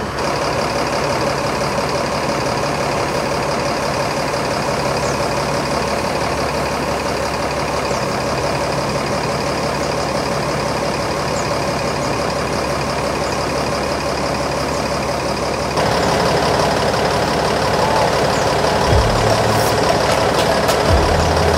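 Mercedes-Benz bus chassis diesel engine idling steadily at the rear of the coach. It grows louder about three-quarters of the way through, as the sound is heard closer to the engine and exhaust.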